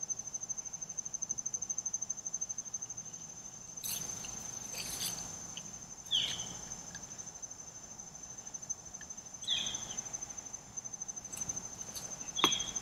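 A high, rapidly pulsing insect trill that goes on without a break. A few short, sharp sounds stand out over it, about four, six, nine and twelve seconds in.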